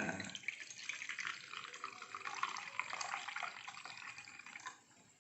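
Pressed dadap-leaf juice being poured into a glass: a steady trickling splash that stops shortly before the end.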